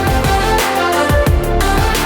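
Electronic background music with a steady beat and heavy bass drops.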